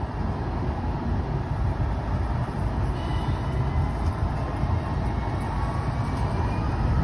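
Alstom Citadis Dualis tram-train passing close by on tram track: a steady low rumble of wheels and running gear, with a faint electric whine rising slowly in pitch in the second half.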